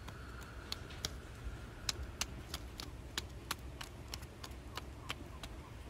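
Light, sharp hand taps on the legs and feet during self-massage tapping, an irregular string of pats about three a second, over a low steady rumble.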